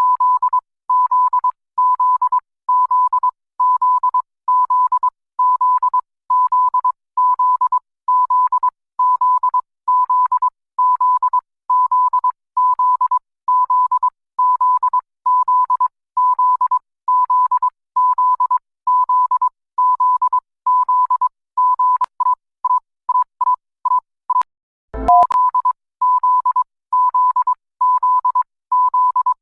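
Electronic emergency-alert beep: one steady, single-pitched tone pulsing on and off a little more than once a second. About three-quarters through, the beeps turn shorter and quicker, a short thump breaks in, and then the even beeping resumes.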